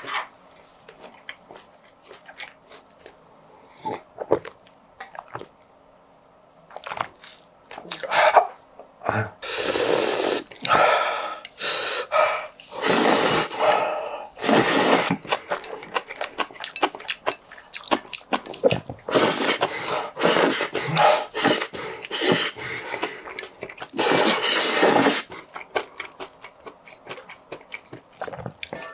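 A person slurping saucy Chapagetti-and-cheese ramen noodles straight from a raised plate: a series of loud, drawn-in slurps that begin about a third of the way in, after a quieter stretch of small mouth and chopstick clicks.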